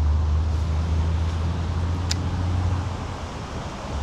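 A low steady rumble with an even hiss over it that eases off about three seconds in, and two short sharp ticks about two seconds apart.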